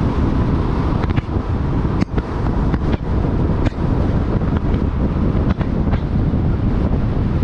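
Wind buffeting the microphone over the steady low rumble of a Jeep Rubicon driving on the road, with a few short pops or knocks from the wind hits or road bumps.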